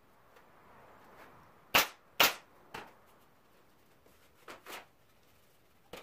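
Wooden window-sash pieces knocking together and against the bench as they are handled and fitted. Two loud, sharp wooden knocks come about half a second apart a couple of seconds in, then a softer one, a lighter pair about halfway through the second half, and one more at the very end.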